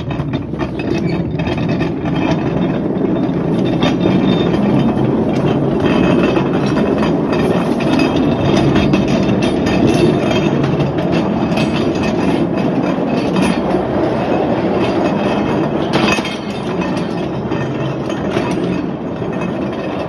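A mine car running along rails: a steady rumble and clatter of its wheels on the track, with scattered clanks and one louder knock about sixteen seconds in.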